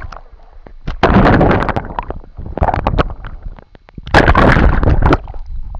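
Water splashing and churning against a waterproof camera's microphone as it goes under the surface, in three loud surges about one, two and a half and four seconds in, with crackling pops between.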